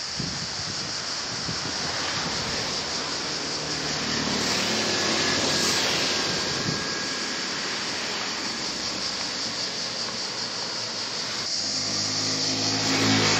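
Seaside ambience: surf washing on the rocky shore under a steady high shrilling of summer insects. Near the end a motor vehicle's engine swells up.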